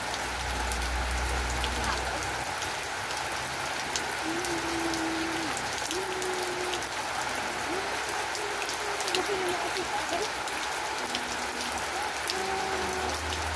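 Steady rain falling, with individual drops ticking sharply on a hard surface over a constant hiss. A low hum stops about two seconds in.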